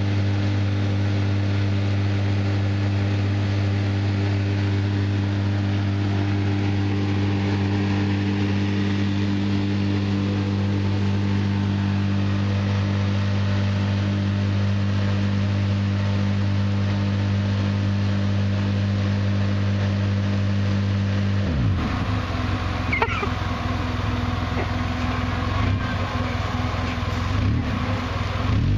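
Polaris RZR side-by-side's engine held at a steady pitch while all four tires spin on a rock in a burnout. About two-thirds of the way through the revs drop suddenly, and near the end they rise and fall again.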